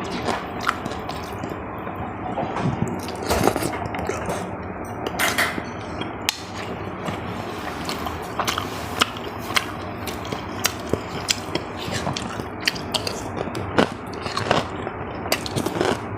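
Close-up eating sounds: chewing with frequent short, sharp clicks and clacks at an irregular pace.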